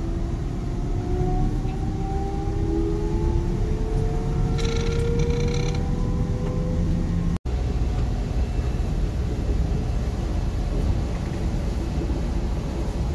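Electric train accelerating: its motor whine rises slowly and steadily in pitch over a low rumble, with a short patch of high squeals partway through. A little past halfway the sound cuts off abruptly, then returns as a steady low rumble of a train running.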